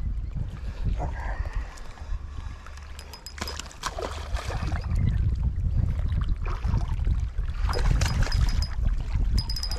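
Water lapping and gurgling around a small fishing boat over a constant low rumble, with scattered light clicks and knocks.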